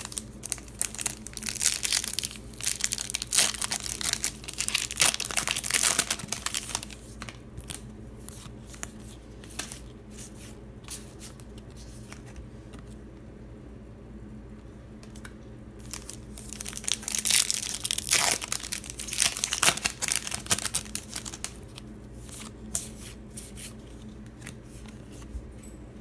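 Plastic and foil trading-card packaging being torn open and crinkled, in two long spells of rustling and tearing, one near the start and one past the middle, with scattered crackles and handling clicks between.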